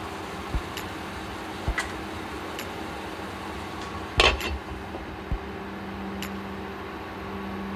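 Glass lid set down onto a frying pan with a single loud clatter about four seconds in, after a few light clinks. Under it, the steady hum of an induction cooktop running.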